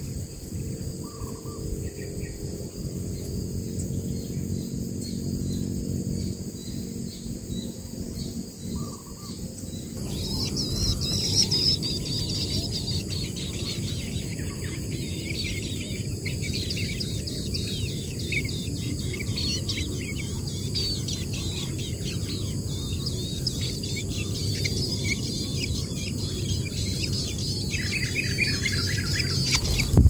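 Songbird nestlings begging, a dense run of rapid high chirps that starts about a third of the way in and keeps going as a parent bird comes to the nest to feed them. A steady high insect drone runs underneath.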